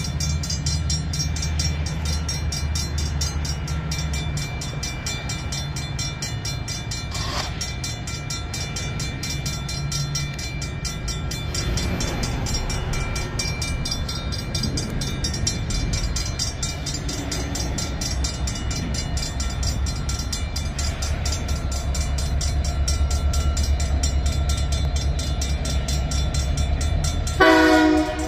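EMD SD70M diesel locomotive running light, its 16-cylinder prime mover giving a steady low rumble as it approaches a grade crossing, with the crossing bell ringing. Near the end the locomotive's air horn starts a loud blast.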